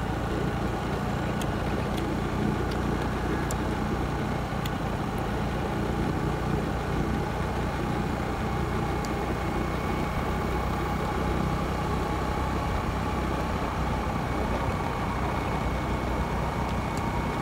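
Motor scooter engine running at a steady cruise, heard from the rider's seat with wind and road rush.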